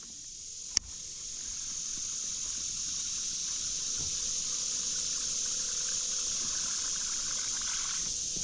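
Steady, unbroken high-pitched chorus of insects, with a single sharp click about a second in.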